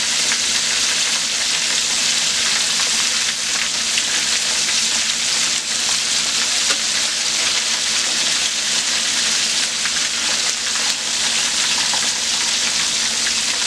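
Flour-dredged baby back ribs deep-frying in hot oil: a steady, loud sizzle and crackle. A few light clicks come as metal tongs turn the pieces over.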